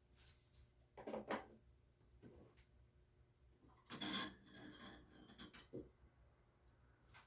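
Quiet handling noises: a few brief rubs and knocks of things being moved about, the loudest about a second in and again around four seconds in.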